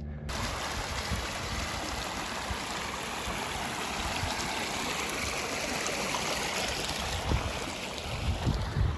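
Steady rush of running water, like a stream or a spill of water. A few low thumps come near the end.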